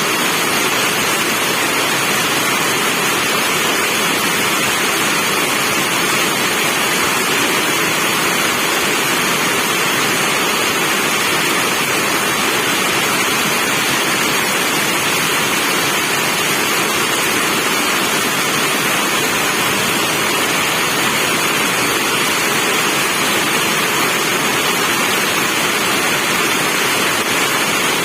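Steady, heavy rain falling, a dense even hiss with no distinct drops or thunder.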